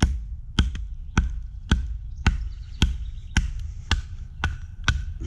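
Baton striking the spine of a knife about twice a second, about ten sharp knocks in a row, driving the blade through a knot in a piece of firewood.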